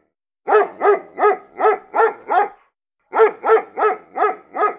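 A dog barking in two quick runs of about six barks each, about three barks a second, with a short pause between the runs.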